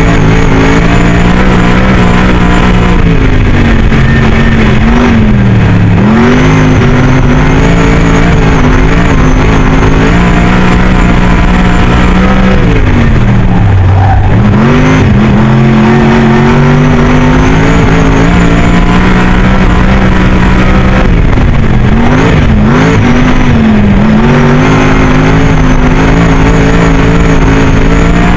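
Superstock race car's V8 engine heard from inside the cockpit, held at high revs and dropping in pitch three times as the throttle is lifted for the turns, then revving back up down each straight.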